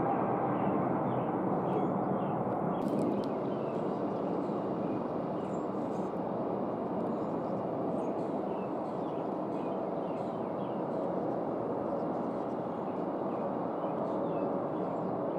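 Airbus A350-900's Rolls-Royce Trent XWB jet engines running as it slows on the runway after landing: a steady rush of jet noise that eases slightly over the first few seconds. Small birds chirp faintly throughout.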